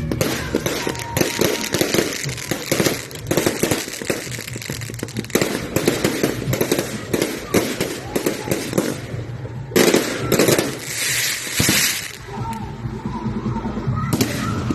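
Fireworks going off: rapid, irregular crackling and popping, with a louder burst of bangs about ten seconds in.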